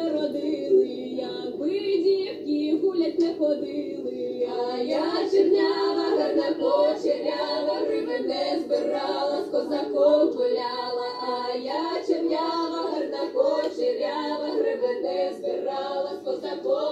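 A group of young women singing a folk song a cappella in several-part harmony.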